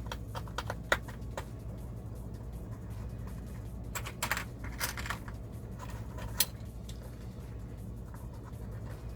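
Plastic LEGO pieces clicking and rattling as they are handled and pressed together: a few sharp clicks near the start, a short rustle of pieces about four seconds in, and one more click a couple of seconds later.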